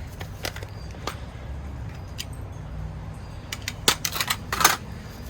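Small hard clicks of a vintage pocket knife being handled while its stiff pen blade is pried open by thumbnail: a few scattered clicks, then a quick cluster of sharper clicks about four seconds in.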